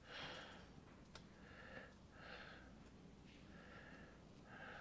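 Near silence, with a person breathing faintly about five times.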